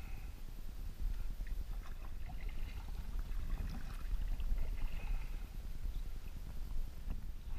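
Kayak paddling on open water: the paddle blade dips and drips with small, scattered splashes, over a steady low wind rumble on the microphone.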